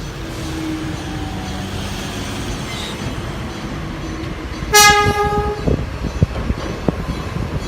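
Enoden electric train running past with a steady rumble, sounding one short horn toot about two-thirds of the way through, then its wheels knocking over the rail joints several times.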